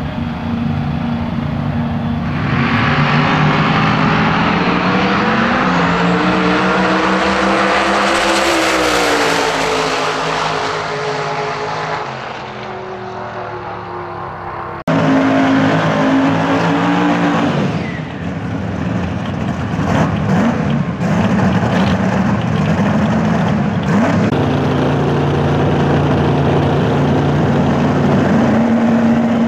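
Outlaw radial drag-racing Mustang at the start line, launching hard about two seconds in. Its engine note climbs in pitch through a full-throttle pass, then drops and fades. After a sudden change about halfway through, drag-car engines idle at the start line with throttle blips.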